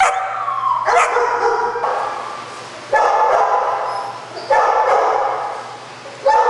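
Kennelled shelter dogs barking and yipping, with a falling whine in the first second. Fresh loud bursts of barking come about three seconds in, again halfway through and near the end, each tailing off gradually.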